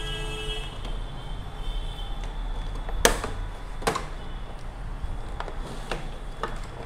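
Plastic LED TV back cover being handled and fitted in place: two sharp knocks about three and four seconds in, then a few lighter clicks, over a steady low hum.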